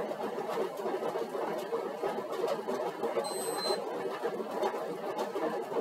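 Stationary exercise bike's flywheel and drive running steadily under pedalling at a light warm-up load. A short, high electronic beep sounds once, about three seconds in.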